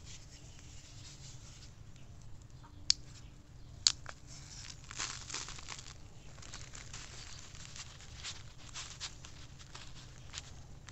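Handling of a thin plastic seedling cup and plastic mulch film: irregular crinkling and rustling as a cucumber seedling's root ball is squeezed out of the cup and pressed into a planting hole in the film, with two sharp clicks about three and four seconds in.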